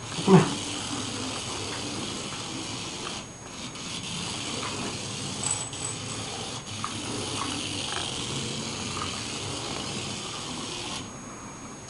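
Small electric motor of a remote-control toy mouse running as a steady whirring hiss. It drops out briefly twice and cuts off suddenly near the end, with faint light ticks over it. A short, loud voice-like sound comes right at the start.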